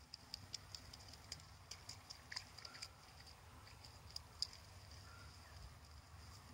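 Near silence, with faint irregular ticks and rustles of a yellow Labrador retriever puppy moving and nosing through wet grass at the water's edge.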